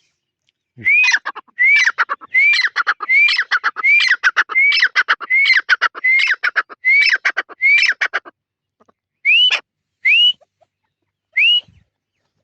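A francolin (teetar) calling loudly: a fast series of about ten ringing whistled notes, each rising and then falling with a clicking rattle, about one and a half a second, then a pause and three single rising whistles near the end.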